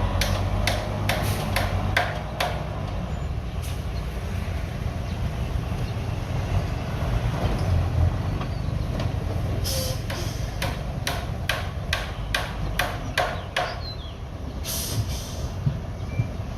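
Bulldozer engine running steadily, with a series of sharp knocks over it: a cluster in the first couple of seconds and another from about ten seconds in.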